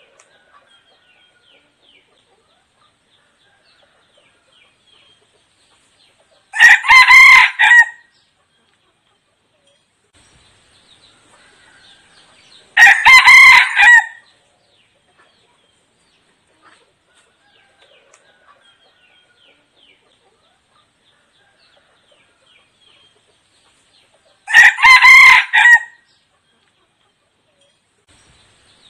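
Red junglefowl decoy rooster crowing three times, each crow short, about a second and a half, several seconds apart.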